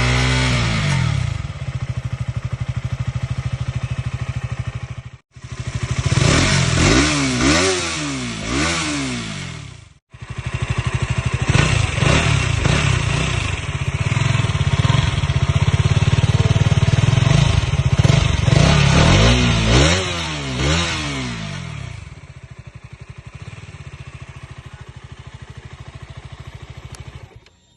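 KTM Duke 200 BS6 single-cylinder engine being revved through its exhaust. It holds at high revs, then comes a run of quick throttle blips and a long high-rev hold, followed by more blips. Near the end it settles back to a steady idle. The sound cuts out abruptly twice for a moment.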